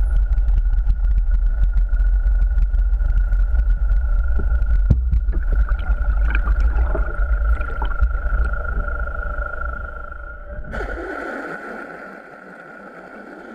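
Underwater sound: a heavy low rumble and a constant high whine, like a boat's engine heard through the water, with scattered clicks and a few short rising whistles from dolphins. About eleven seconds in, the low rumble drops away and a hissing wash of water noise takes over.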